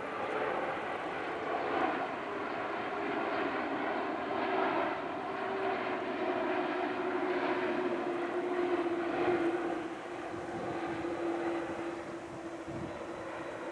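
Airbus A330-200 twin-engine jet airliner on landing approach passing close overhead: a steady rushing engine noise with a whining tone that slowly falls in pitch as it goes by.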